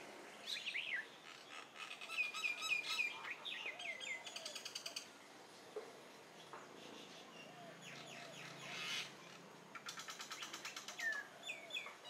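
Common mynas calling: a mix of short falling whistled notes and fast, rattling chatter, coming in bursts several times.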